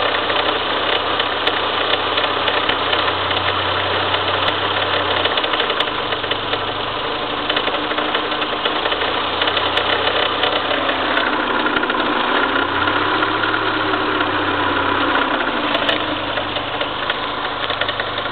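An engine running steadily, its low hum shifting slightly every few seconds, with a noise that the owner considers abnormal.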